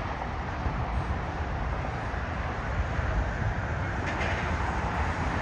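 Jet airliner engines rumbling across the airfield, a steady low roar with no clear rise or fall.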